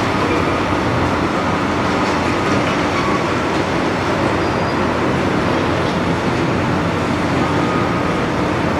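Large Doosan excavator's diesel engine running steadily, a loud continuous machine noise without distinct impacts.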